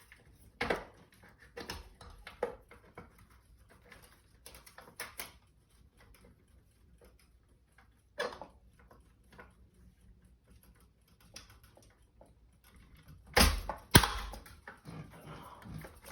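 Scattered clicks and knocks from handling window-shade hardware: the shade and its plastic mounting clips being worked into the brackets. Two louder knocks come close together near the end.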